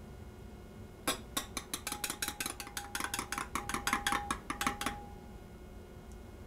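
Metal teaspoon clinking against the inside of a double-walled glass cup as coffee is stirred, a quick run of about six clinks a second with a faint ringing tone from the glass. It starts about a second in and stops about five seconds in.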